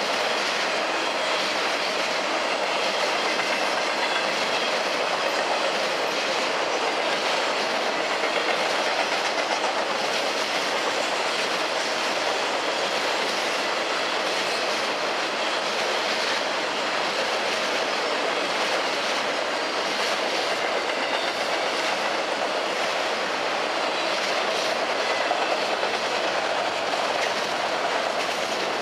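Autorack cars of a CSX freight train rolling steadily past, steel wheels clicking over the rail joints.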